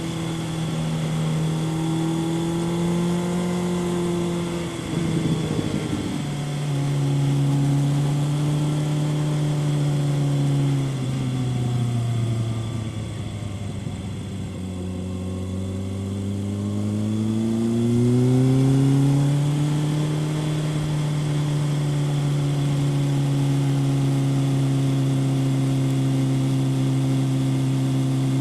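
Kawasaki ZRX 1100's inline-four engine through a Yoshimura exhaust, heard while riding. It pulls through a gear change about five seconds in, drops away as the bike slows about halfway through, then climbs again and settles at a steady cruise.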